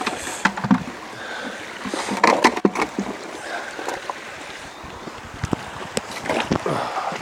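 River water pouring and sloshing in a plastic gold pan as it is filled and swirled, with scattered short splashes and knocks.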